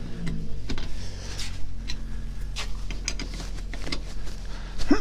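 Lug wrench clicking and scraping on the wheel nuts of a spare wheel as they are snugged down by hand, over a steady low hum.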